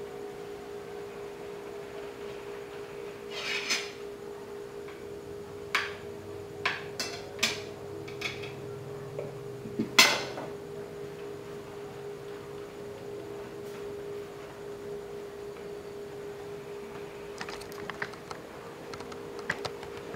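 Spoon and fork clinking against a plate during a meal: a scatter of short, sharp clicks, the loudest about ten seconds in and a few lighter ones near the end. A steady low hum runs underneath.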